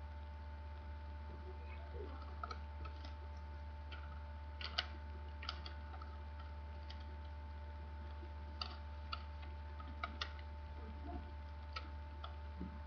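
Sheet of origami paper being handled, folded and creased by hand: irregular crisp ticks and crinkles, the sharpest about five seconds in, over a steady low electrical hum.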